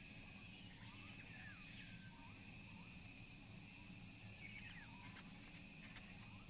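Faint tropical forest ambience: a steady high insect drone with scattered short bird chirps, over a low hum.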